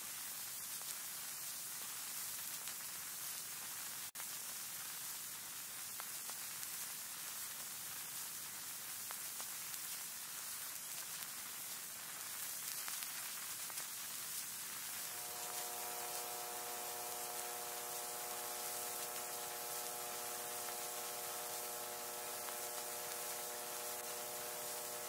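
Faint steady hiss and static of a VHS-style recording. About fifteen seconds in, a quiet chord of several held tones comes in under the hiss and stays.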